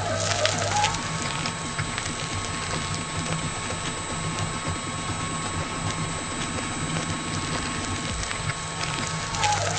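Industrial shredder running, its rotating cutter blades grinding through a pillow's fabric and fibre stuffing with an even mechanical grinding and a steady high whine.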